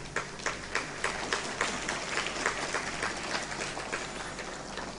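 Audience applause: scattered hand claps that thicken into steady clapping and thin out again near the end.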